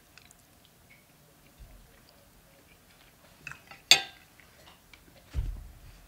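A fork clinking and scraping on a plate while eating, with a few faint ticks and one sharp clink about four seconds in. A soft low thump comes near the end.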